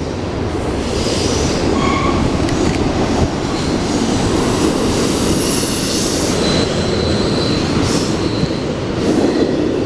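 Long intermodal freight train's cars rolling past steadily, steel wheels running on the rails, with a thin high wheel squeal partway through.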